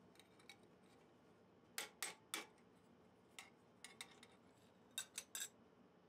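Light clicks and clinks of small metal padlock parts knocking together as they are handled and fitted: three sharp clicks about two seconds in, a few faint ticks, then three more near the end.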